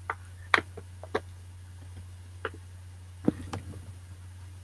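A few short, light clicks and crinkles from a plastic treat pouch being handled. They come unevenly, several in the first second and two more near the end, over a steady low hum.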